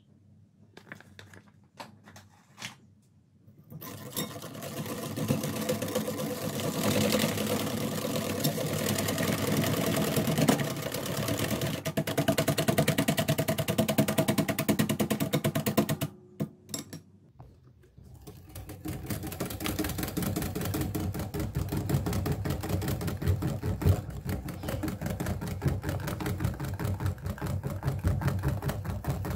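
Wire whisk beating foamy, soapy liquid in a glass bowl, its wires rattling rapidly against the glass. The whisking starts about four seconds in, stops briefly around sixteen seconds, then starts again.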